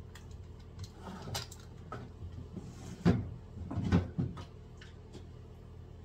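Items being handled and packed into a diaper bag: scattered clicks and rustles, with two louder knocks about three and four seconds in.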